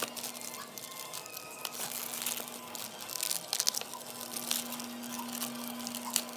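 Plastic and cardboard packaging being handled and opened: crinkling and rustling with small clicks and tearing sounds, over a faint steady low hum.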